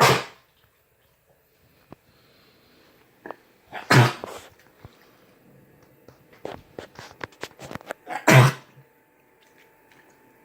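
Chihuahua coughing: three sharp coughs about four seconds apart, with faint short clicks in between.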